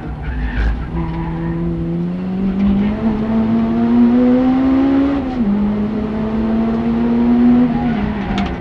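Honda Civic Type R EP3's four-cylinder engine under hard acceleration, heard from inside the cabin. Its pitch climbs through the rev range, drops sharply at an upshift about five seconds in, climbs again, then falls near the end.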